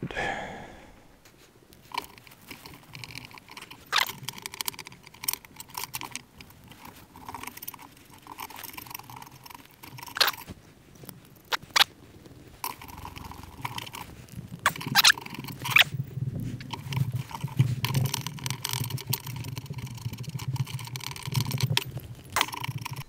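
Rivet nuts being set in a sheet-metal bracket with a hand rivet nut tool: scattered sharp metallic clicks, with longer stretches of crunching and scraping as the tool is worked.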